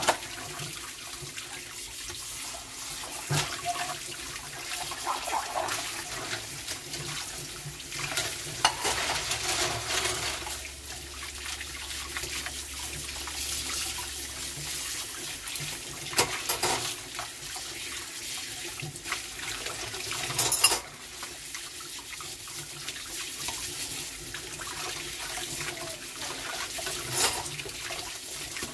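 Kitchen tap running into a stainless steel sink as dishes and metal utensils are rinsed under the stream, the water splashing steadily. Several sharp clinks and knocks of dishes and utensils against each other and the sink, the loudest about twenty seconds in.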